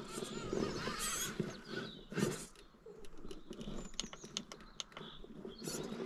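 FTX Ravine RC rock crawler clambering up a rocky gully: its electric motor and gears run in short spurts while tyres and chassis scrape and knock against stone. A cluster of sharp clicks comes past the middle.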